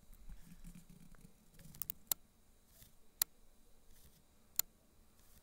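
About five sharp, separate clicks over a faint background, the clearest about two, three and four and a half seconds in.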